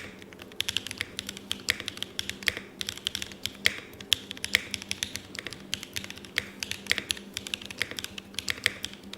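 Typing on a Nuxros RE65 custom mechanical keyboard: a quick, irregular run of key clicks and clacks, several a second, some strokes louder than others.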